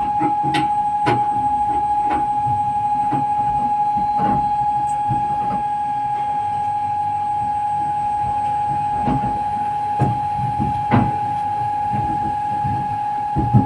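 Fire-training simulator during a live-fire drill: a constant rushing hiss with a steady high tone held throughout, as firefighters spray water fog onto the burning prop. Sharp knocks and clicks sound every second or so early on, then more sparsely near the end.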